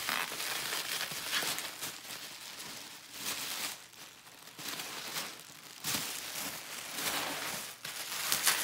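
Plastic bubble wrap crinkling and rustling as it is handled and pulled off, coming and going with short pauses.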